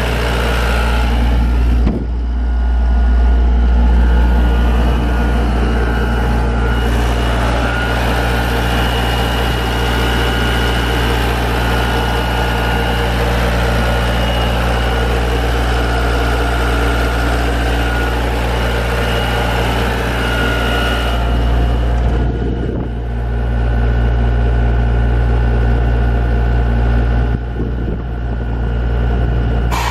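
Atlas Copco XAS136DD portable air compressor's diesel engine running steadily with a deep drone and a faint high whine above it. The tone shifts a little a couple of seconds in and again past twenty seconds.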